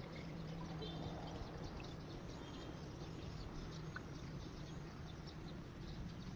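Outdoor rural ambience: scattered short, high bird chirps over a steady low hum.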